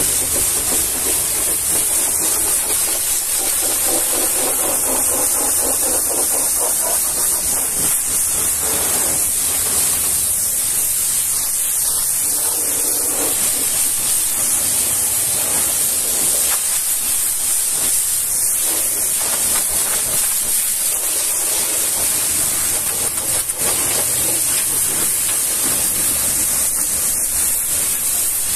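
High-pressure washer jet spraying water against a truck's metal fuel tank and chassis: a steady hiss without a break.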